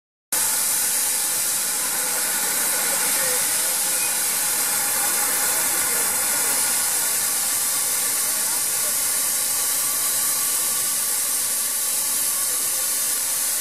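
Steady steam hiss from the narrow-gauge saddle-tank steam locomotive Elidir. It starts suddenly and cuts off suddenly near the end.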